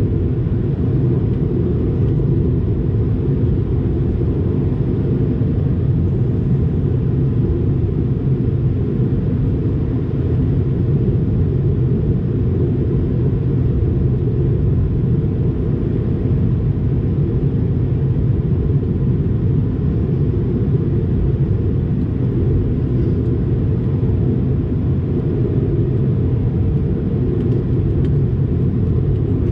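Steady cabin noise inside an Airbus A220-300: a constant low rumble of airflow and its Pratt & Whitney geared turbofan engines, with a faint steady hum above it.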